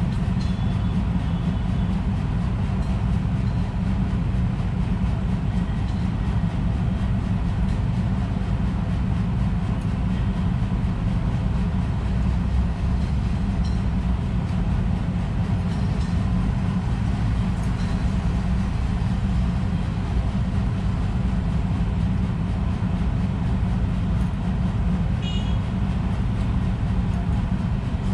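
Steady low rumble of street traffic below the balcony, with a few faint, short bird chirps over it.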